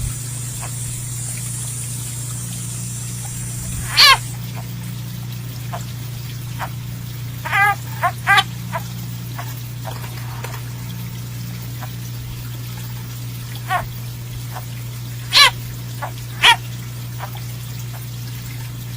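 Frog distress cries: short, sharp squeals falling in pitch, singly or in quick pairs, several seconds apart, over a steady low hum.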